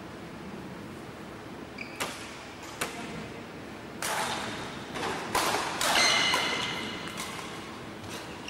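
Badminton racket strikes on shuttlecocks: a handful of sharp, echoing hits, spaced unevenly and coming closer together in the second half, with brief high-pitched squeaks between them.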